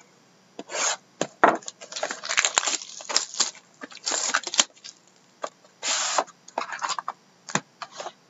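Plastic shrink-wrap being torn off a sealed cardboard trading-card hobby box and crumpled in the hand, in irregular bursts of crinkling and crackling with sharp little clicks, as the box is handled and opened.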